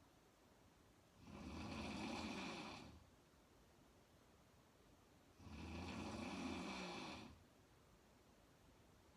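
A woman snoring in her sleep: two long snores about four seconds apart, each lasting under two seconds, with near-quiet pauses between.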